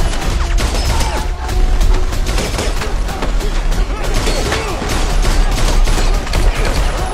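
Rapid, repeated gunshots from an action-film fight scene, over a music score with a steady heavy bass.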